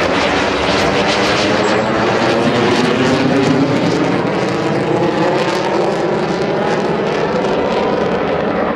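Military aircraft flying past, a loud, steady engine noise whose tones slowly shift in pitch as it passes.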